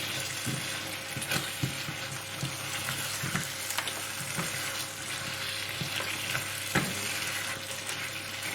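Curry sauce sizzling in a hot pan while being stirred, a spoon scraping and tapping against the pan every so often, with a louder tap near the end.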